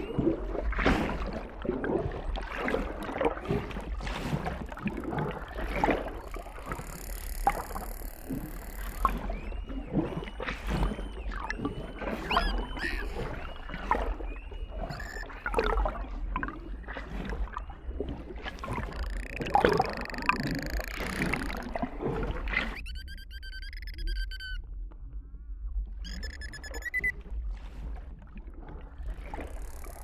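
Dolphins calling underwater: a dense stream of clicks with repeated short, arching whistles. From about 23 seconds in the clicks mostly fall away, leaving a few longer, wavering whistles.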